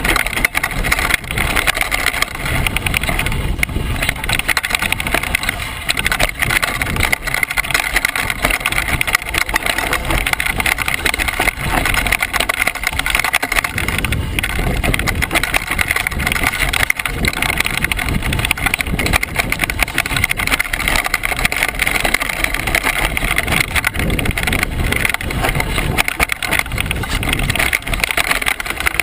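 Mountain bike riding fast down a rocky, loose downhill trail: a continuous clatter and rattle of the bike and its tyres over stones and ruts. It is heard close up through a GoPro HD Hero's housing.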